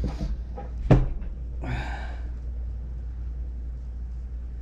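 Parts of a dismantled pressure washer pump being handled on a workbench: a sharp clack about a second in, then a short scraping rustle, over a steady low hum.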